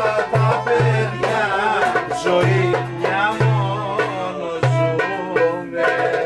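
Greek folk music: a wavering violin melody over a lute's pulsing low notes and hand-drum beats.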